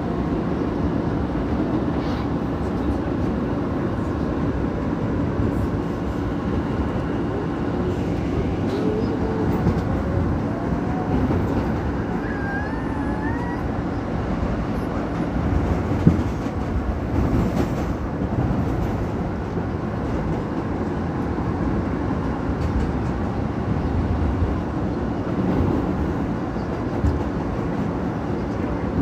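R160 subway car running along the line, heard from inside the car: a steady rumble and rail noise. Midway through, a whine climbs in pitch for several seconds, and a single sharp knock follows a little past halfway.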